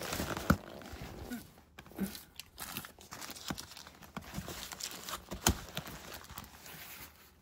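A cat moving about on a cardboard scratcher inside a wire pen: crumpled paper rustles in the first second, then scattered light taps and knocks.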